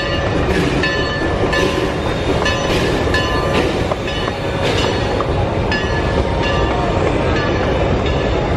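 Huckleberry Railroad steam train rolling past: a steady rumble of the cars on the track, with a short ringing tone repeating about every half second.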